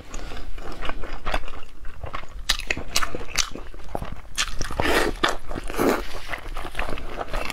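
Close-up eating sounds of a person biting and chewing a large chunk of meat: irregular sharp wet mouth clicks and smacks, with two longer, noisier chewing stretches about five and six seconds in.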